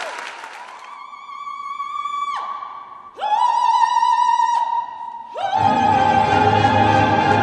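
Operatic soprano singing long, high held notes with vibrato, unaccompanied, three notes with short breaks between them; the orchestra comes in under the third note about five and a half seconds in.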